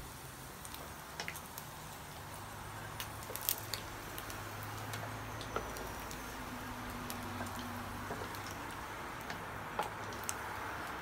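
Hot oil sizzling softly in a nonstick wok while a wooden spatula scrapes and taps against the pan, lifting out pan-fried pieces of meatball, with scattered sharp clicks.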